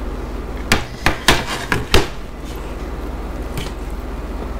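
The pizza being handled on its tray: a quick run of about five sharp knocks and crackles about a second in, over a steady low hum.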